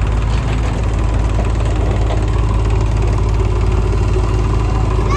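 Heavy diesel engine idling steadily with a low, even throb.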